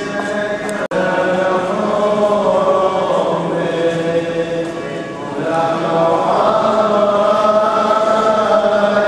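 Voices singing a slow liturgical chant with long held notes during communion at Mass. The sound drops out for an instant about a second in.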